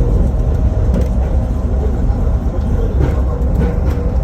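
Airport people-mover tram running, a steady low rumble with a faint steady hum over it.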